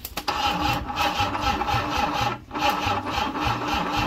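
Ford Cologne 2.3 V6 engine of a Cortina Mk4 being cranked by its starter motor: a steady starter whine over a rhythmic chug of compression strokes, a few a second, breaking off about two and a half seconds in and then cranking again. The engine does not catch; the owner blames a battery that isn't putting out enough and a starter motor too weak.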